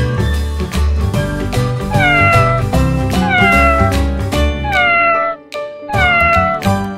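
Background music with four cat meows laid over it, each falling in pitch, spaced a little over a second apart from about two seconds in. The music breaks off briefly just after the third meow and fades out at the end.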